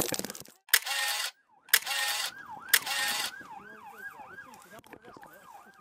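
Police siren in yelp mode, a fast rising-and-falling wail about three times a second, fading away toward the end. Three short, loud rushes of noise come in the first half.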